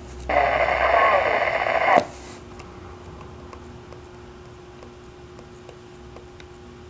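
GE Phoenix SX VHF mobile radio's speaker giving a loud burst of hiss and received audio for under two seconds while its channels are stepped through. After that it drops to a faint steady hum, with a few soft clicks from the front-panel channel buttons.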